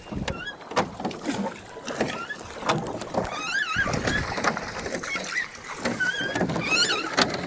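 Paddling a rowboat: scattered knocks of the paddle against the hull and water noise from the strokes. A bird sings short warbling phrases about three seconds in and again near the end.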